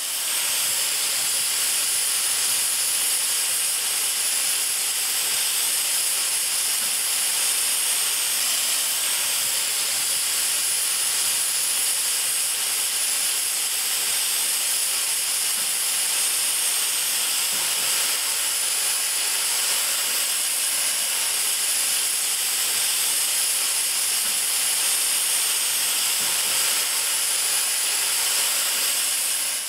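Steam hissing steadily from a steam locomotive, an even high hiss that cuts in and cuts off suddenly.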